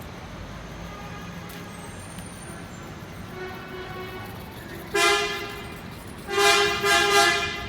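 Coach horns honking in protest. A faint horn builds from about three seconds in, then come two loud blasts, the second longer.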